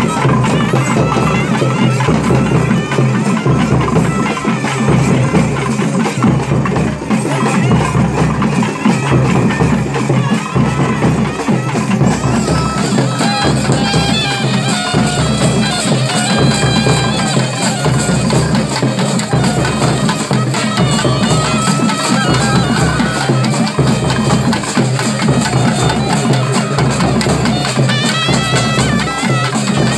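Loud traditional festival music: a reedy wind-instrument melody over a steady drone, with a drum keeping a regular beat of about one stroke a second.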